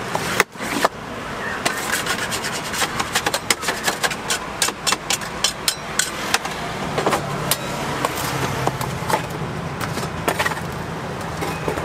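A knife cutting through a slab of crisp puffed rice cake in a steel tray, giving many irregular crunching, crackling clicks as the stuck-together grains break. Later a flat blade slides under the cut blocks to lift them. A steady low hum joins from about seven seconds in.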